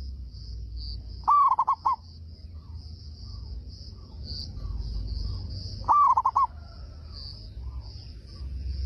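Zebra dove (perkutut) cooing twice, about four and a half seconds apart, each call an arched opening note followed by a quick run of three short notes. A steady high-pitched pulsing hum runs behind the calls.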